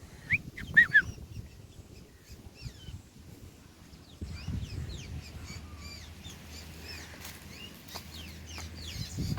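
Birds chirping: a few short, sharp high chirps about a second in, then a long run of fainter quick chirps.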